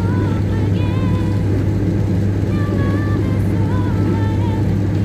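Car driving on the road, heard from inside the cabin: a steady low engine and road drone. Faint music with a wavering melody sits over it.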